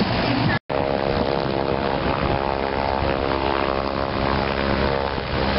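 Piston engine and propeller of a small single-engine aerobatic plane running steadily as it rolls along the runway. The sound drops out briefly about half a second in.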